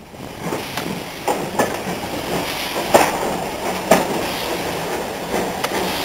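Passenger coach rolling along the track, heard close from its open window: a steady rumble with sharp wheel clicks over rail joints at uneven intervals. The sound gets suddenly louder right at the start.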